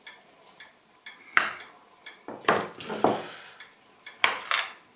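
Kitchen knife cutting cooked chicken pieces and knocking down onto a cutting board: about five sharp knocks spaced irregularly, the first about a second and a half in.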